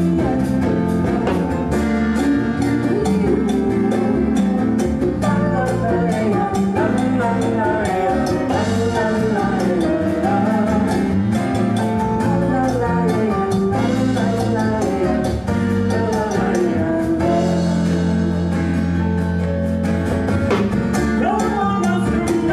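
Live bossa nova: a woman's voice singing over two acoustic guitars, with light percussion keeping a steady beat.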